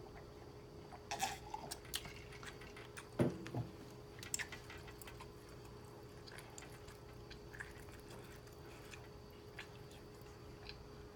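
Close-up mukbang eating sounds of garlic butter noodles with beef and broccoli: wet chewing and mouth noises, with scattered light clicks of chopsticks against the food container. The loudest sound is a short low thud about three seconds in.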